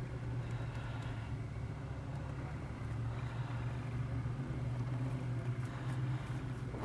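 Engines of ex-military off-road trucks running steadily as they drive across rough ground, a constant low engine hum.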